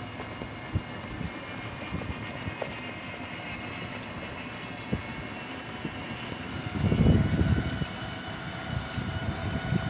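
A vehicle's engine running steadily while driving, with road and wind noise on the microphone and scattered small knocks. A louder low wind rumble comes about seven seconds in.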